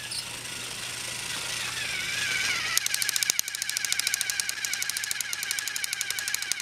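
Motorised toy Thomas the Tank Engine running on plastic track: a wavering motor whine, then about three seconds in, as it comes up close, a fast, even clicking of about eight to ten clicks a second over the whine.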